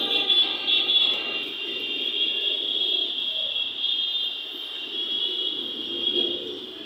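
Street traffic on a congested city road, with buses and auto-rickshaws crawling. Horns sound loudest in the first second or so over a steady din.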